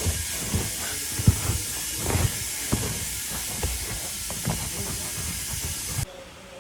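Compressed air hissing steadily, with scattered low knocks underneath, cutting off suddenly about six seconds in.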